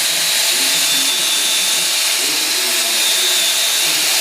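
Power drill spinning a Blue Monster copper-cleaning brush against copper pipe: a steady, loud scrubbing hiss with a constant high motor whine.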